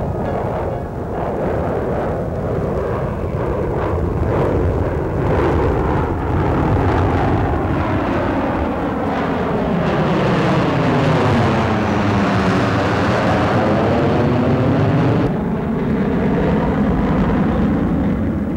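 Jet aircraft flying overhead, a steady roar with a sweeping tone that falls and then rises in the middle as they pass; the hiss thins out about fifteen seconds in.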